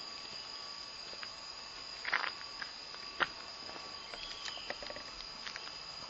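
Steady high-pitched insect chirring in woodland. About two seconds in comes a short crackle of dry leaves and twigs underfoot, then a sharp click a second later and a few lighter crackles.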